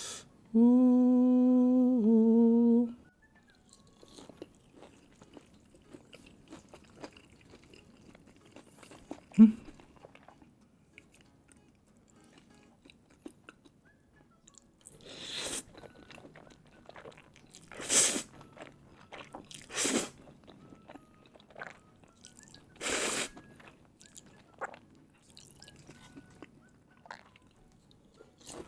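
A man hums a long, steady "mmm" for a couple of seconds at the start, then chews spicy cheese ramen noodles and fried chicken katsu with close-up mouth sounds. There is one sharp click about nine seconds in and several short, louder bursts of slurping or crunching later on.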